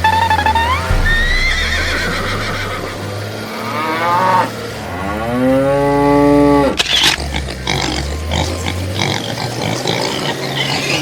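Farm animal call sound effects over background music, with one long drawn-out call about halfway through.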